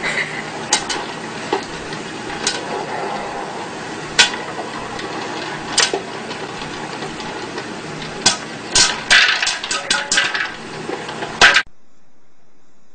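Electric popcorn popper with a clear plastic dome running steadily while kernels pop against the lid: single pops every second or two at first, then a quick flurry of pops near the end.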